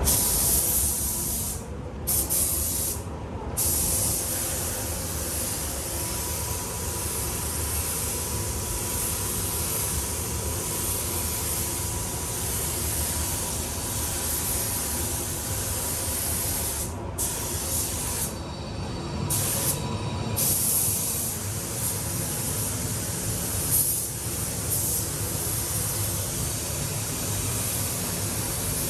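Compressed-air paint spray gun hissing steadily as a coat of paint goes on, with a few brief breaks in the spray, over a steady low rumble.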